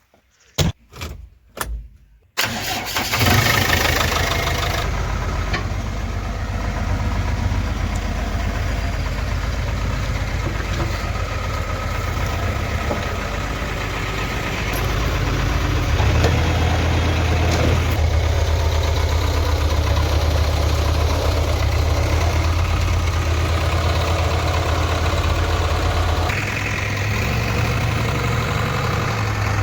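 A few clicks and knocks, then a JCB backhoe loader's diesel engine starts about two seconds in and settles into a steady idle. Its low note grows stronger about halfway through.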